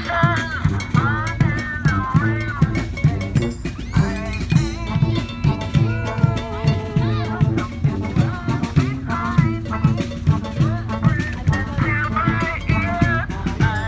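Street band playing funk: a steady, driving drum beat under held horn lines.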